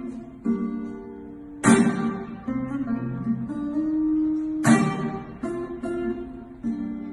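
Acoustic steel-string guitar played with a capo, without singing. A full strum rings out about every three seconds, with single picked notes sounding between the strums.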